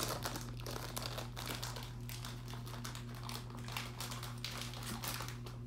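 Plastic bag of Smurf gummies being handled and opened, crinkling with a continuous run of quick, irregular crackles.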